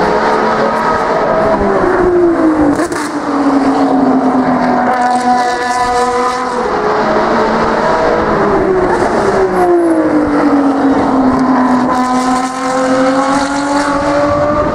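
Ferrari V12 track car running hard at high revs, its engine note swooping down in pitch as it goes past and rising again as it accelerates away, twice over.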